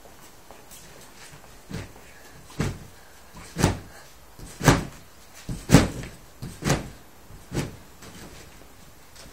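Seven dull thumps about a second apart, growing louder toward the middle and then fading: a person jumping and landing over and over.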